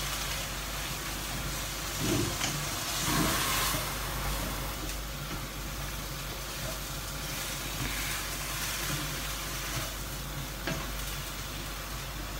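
Vegetables and tofu sizzling in a wok over a gas flame, with a few light knocks from stirring.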